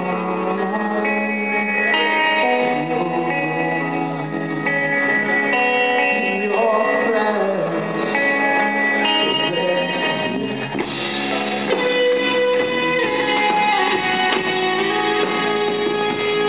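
Live rock band playing, led by guitars with sustained, ringing notes; deeper low notes join about eleven seconds in.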